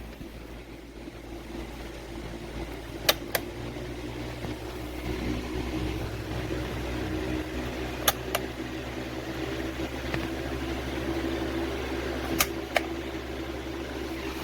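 Comfort Zone 16-inch wall-mount fan running with a steady hum. Three pairs of sharp clicks sound at roughly four-to-five-second intervals, each pair a fraction of a second apart.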